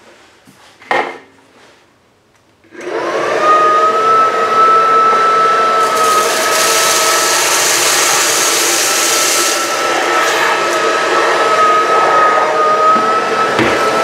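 A Cecotec Conga Rockstar 10000 Nebula cordless stick vacuum with a crevice nozzle switches on a little under three seconds in, after a click about a second in. Its motor whine rises quickly and settles into a steady high tone. From about six to nine and a half seconds a brighter hiss joins it as the nozzle sucks up a line of fine grains.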